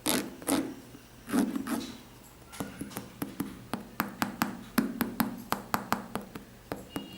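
A sneaker being handled and turned over: a few soft thumps and rustles, then a run of quick, light taps and clicks, several a second.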